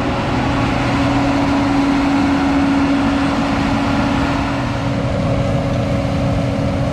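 Engine idling, a steady unchanging hum.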